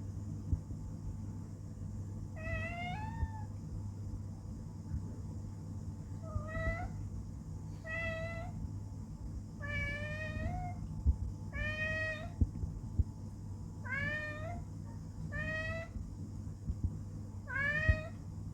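A pet cat meowing about eight times, a second or two apart, each meow rising in pitch. The cat is asking to be picked up. A steady low hum runs underneath.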